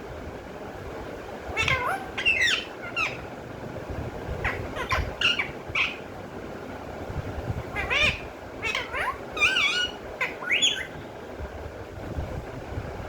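Pet parrot giving short, pitch-bending squawks and chattering calls in three bursts with pauses between.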